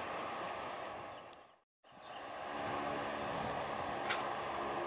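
Four Ivchenko AI-20 turboprop engines of an Antonov An-12 running with propellers turning, a steady drone with a high whine. The sound drops out briefly about one and a half seconds in and fades back up, with a sharp click near the end.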